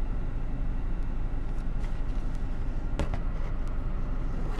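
Steady low rumble in a car's cabin, with a few light clicks and a short rustle about three seconds in as a sandwich is bitten and chewed.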